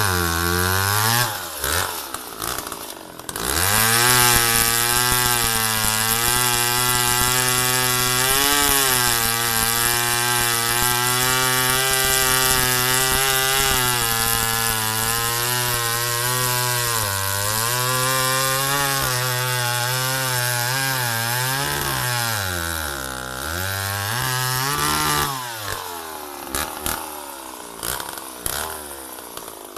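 McCulloch Pro Mac 700 two-stroke chainsaw cutting into a log: the engine runs at high revs for most of the time, its pitch sagging and recovering as the chain bites into the wood. The revs drop briefly near the start and fall away toward idle in the last few seconds.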